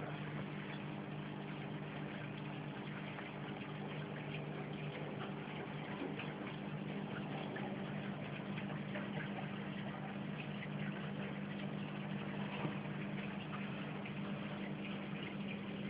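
Reef aquarium running: a steady low hum from its circulation pumps, with water trickling and many small ticks over it.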